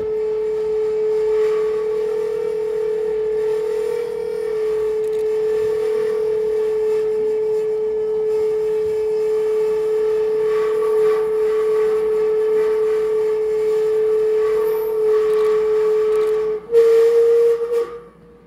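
Sustained electronic drone from an improvised experimental instrument setup: one held tone with fainter overtones above it. About 17 seconds in it steps slightly higher and louder, then drops away sharply just before the end.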